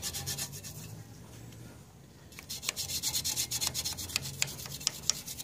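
Small bristle acid brush wet with Lime Away scrubbing rust on chrome motorcycle exhaust in quick back-and-forth strokes. The scrubbing stops for about a second and starts again past the halfway point.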